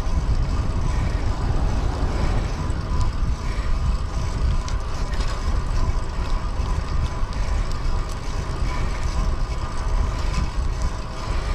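Wind buffeting the microphone of a rider on a moving fixed-gear bicycle, a steady low rumble, with tyres rolling on pavement underneath.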